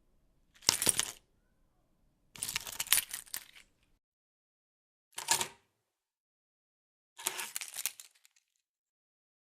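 A car key and its keyring set down on and picked up from a tabletop four times, each a bright metallic jingle and clink; the second and fourth are longer rattles, the third a short clack.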